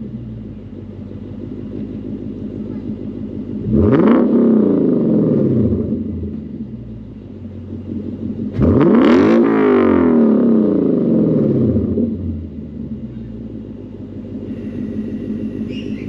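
A 2016 Lexus GS F's 5.0-litre 2UR-GSE V8 idling through an RR Racing Bazooka valved axle-back exhaust with the valves open (loud mode). It is revved twice: a short blip about four seconds in, then a longer, higher rev held for about three seconds from roughly the middle. Each time it falls back to idle.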